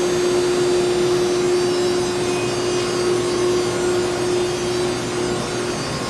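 Steady machine whir with a constant mid-pitched hum running through it; the hum drops out near the end while the whir goes on.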